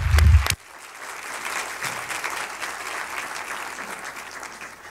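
Audience applause after a speech. It opens with loud, close thumps for about half a second, then settles into steady clapping from the hall and stops abruptly near the end.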